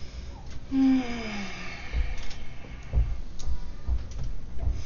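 Objects handled on a tabletop: several dull low knocks, with a short pitched tone sliding downward about a second in.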